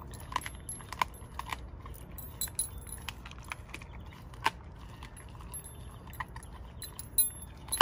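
A Doberman chewing a raw squirrel's hind legs, with irregular sharp clicks and crunches, and its metal chain prong collar and tag jingling as it works its jaws. The loudest clicks come near the end.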